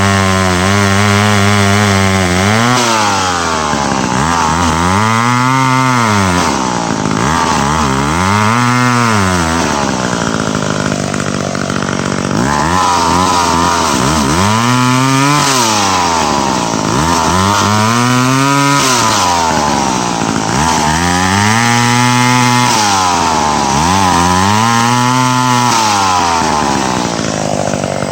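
Two-stroke chainsaw idling briefly, then revved up and eased off again and again, about every three seconds, as it cuts dead ash wood.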